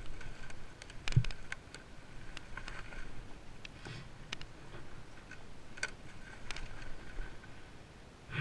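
Kawasaki dirt bike rolling over a rocky, needle-covered trail: irregular clicks and knocks, the loudest about a second in, with no engine note heard.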